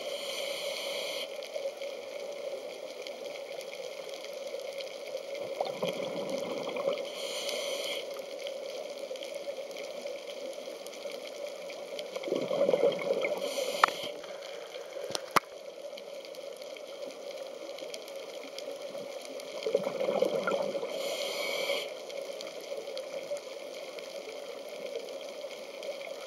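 Scuba diver breathing through a regulator: about every seven seconds, a gurgle of exhaled bubbles is followed by the short hiss of the next breath in, three times. Under it runs a steady hum, and there are two sharp clicks a second and a half apart midway.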